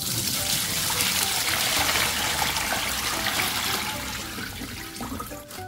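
Water and smelt poured from a bowl through a stainless mesh colander into a steel sink: a sudden rush of splashing water that slowly tapers off over a few seconds.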